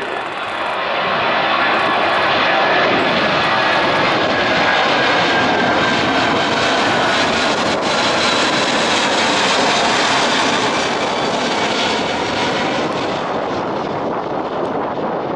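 Boeing 777-200ER's twin jet engines at takeoff power, a loud steady roar with a faint whine as the airliner climbs away. The roar swells about a second in and eases slightly near the end.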